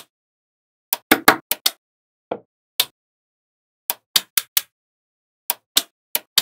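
Small magnetic balls clicking as they snap onto one another and are set in place: about fourteen short, sharp clicks in irregular clusters, with dead silence in between.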